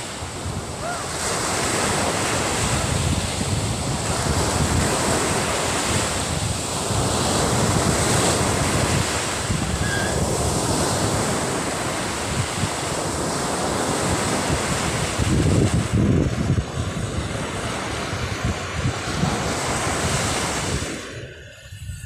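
Small waves breaking and washing up a sandy beach, with wind buffeting the microphone. The sound fades out near the end.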